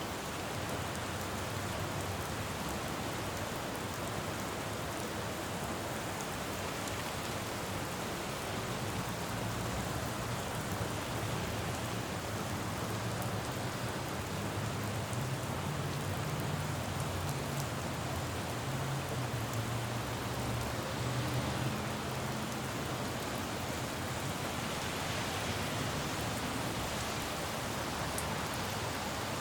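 Steady rain falling on a city road, with the low hum of passing traffic building up in the middle and fading away again after about twenty seconds.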